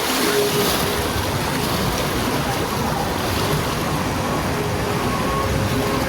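Steady rush of water around a river-rapids raft, with wind buffeting the microphone.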